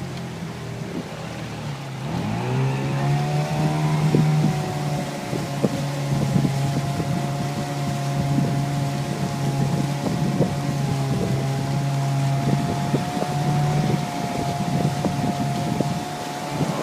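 Mariner 15 hp outboard motor on a jon boat, running at low revs and then throttled up about two seconds in, holding a steady higher pitch under way, with a brief dip and rise in revs near the end. Wind on the microphone and scattered short knocks run under the engine.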